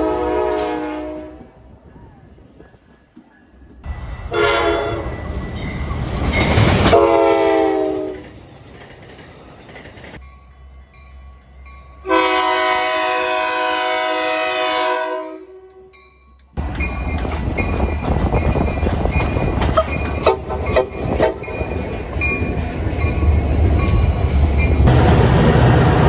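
Locomotive air horn sounding several blasts, each a chord of several tones: one ends about a second in, then a longer blast, then another long one. After the last blast a train passes close by with a steady rumble and wheels clicking over the rail joints.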